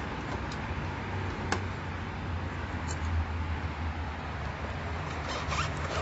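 Wires with crimped ring terminals being handled at a UPS terminal block: a sharp click about a second and a half in, then scratchy rustling of handling toward the end, over a steady low hum.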